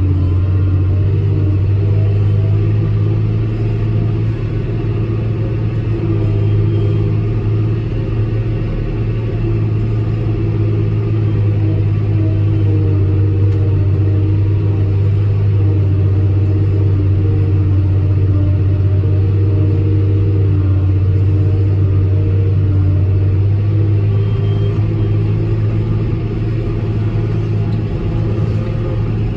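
John Deere 6150R tractor engine running steadily under full load, driving a Kongskilde 1260 trailed forage harvester as it chops grass, heard from inside the tractor cab. A steady deep drone with a constant hum over it.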